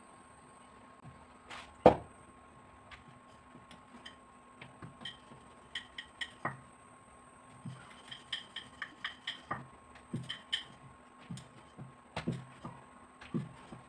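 Rolling pin tapping and knocking on a rolling board as roti dough is rolled out: a run of quick uneven taps with light clinks among them, and one sharper knock about two seconds in.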